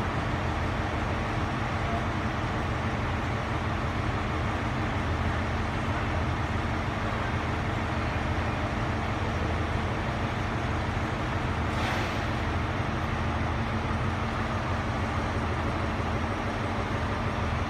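Steady low rumble and hum of diesel train engines running in a station, with one sharp click about twelve seconds in.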